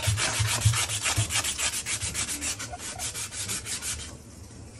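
Strip of sanding cloth pulled rapidly back and forth around the end of a water-pipe stub, a fast even run of scratchy rubbing strokes, several a second, that stops about four seconds in.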